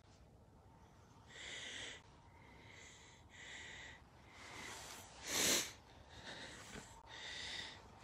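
A person breathing close to the microphone: a string of about five breaths, with one louder, sharper breath about five seconds in.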